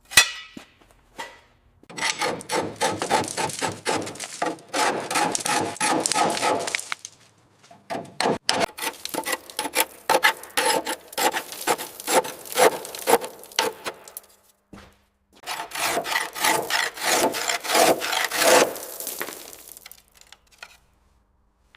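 Quick back-and-forth rasping strokes of a hand tool, in three bouts of several seconds each with short pauses between.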